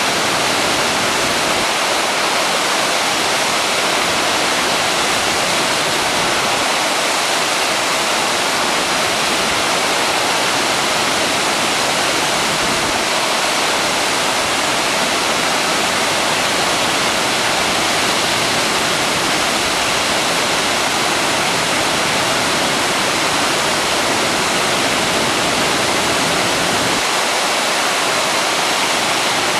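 Steady rush of water from a waterfall running under its ice, an even unbroken noise.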